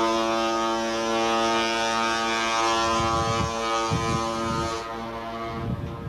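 Ship's horn of the liner TSS Mardi Gras sounding one long blast, several steady pitches together, and cutting off near the end. Wind buffets the microphone beneath it.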